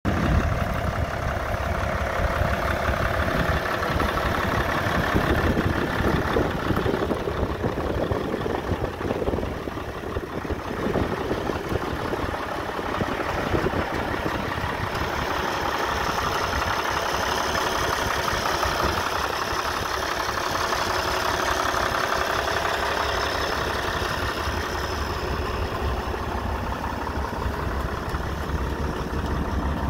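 International Harvester 86 Hydro tractor engine idling steadily.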